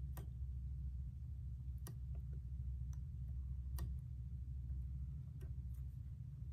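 Metal tweezers give a few light clicks, one every second or two, as they tap and pick at a painted wooden slat to lift off stencil pieces, over a steady low hum.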